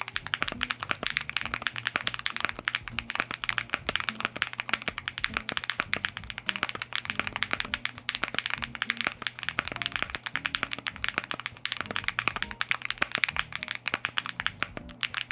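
Fast typing on a Pixelspace Capsule 65 R2 keyboard with Kailh BCP switches, JTK Royal Alpha keycaps and an FR4 plate over case, plate and PE foam: a dense, steady run of keystroke clacks.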